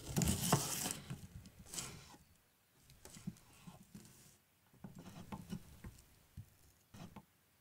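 Chef's knife slicing through an onion on a wooden cutting board, a crisp crunchy cut in the first second that is the loudest sound. Then lighter taps and scrapes of the knife on the board and pieces of onion dropping as the diced onion is gathered up on the blade and moved into a bowl.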